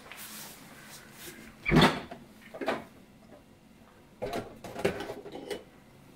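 Knocks and clunks of kitchen cabinetry being handled: the loudest knock comes a little under two seconds in, another just before three seconds, then a run of smaller clicks and knocks late on.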